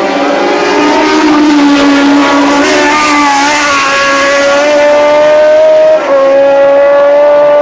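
Formula One car's Cosworth DFV V8 at racing revs, its note rising and falling with the throttle over the track's crests and bends. About six seconds in a brief dip and a drop in pitch mark an upshift, then it pulls on steadily.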